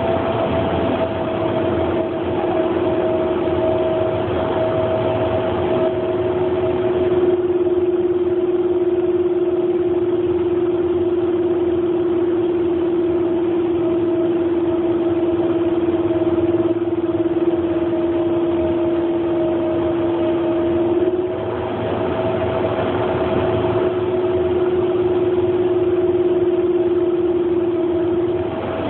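Steady running noise inside a moving train carriage, with two steady hums over it. The lower, louder hum comes in about a second in, wavers briefly about two-thirds of the way through and cuts off near the end.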